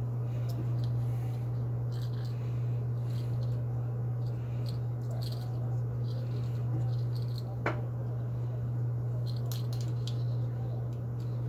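A steady low hum, with faint rustling and small ticks of fingers tying a knot in monofilament fishing line threaded through a plastic straw piece. One sharp click comes about two-thirds of the way through.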